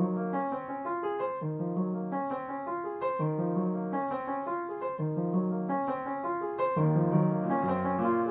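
Background piano music: a repeating figure of sustained notes that grows a little fuller about seven seconds in.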